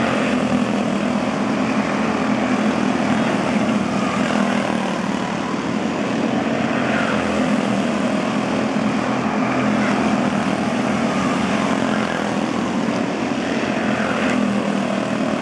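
Several quarter midget race cars' small Honda engines running at racing speed around the oval, a steady buzzing drone that swells a little as the cars pass.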